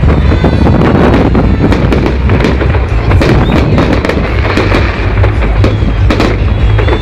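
Fireworks display: a dense, unbroken run of bangs and crackles from bursting shells.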